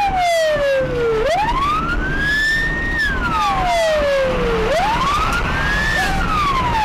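Police car siren in a slow wail, its pitch rising and falling about every three and a half seconds, over the steady rumble of vehicle noise.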